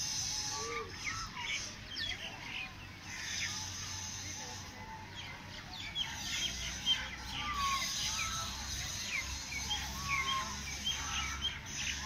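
Many small birds chirping at once: short, high calls that overlap without a steady rhythm, over a steady high hiss.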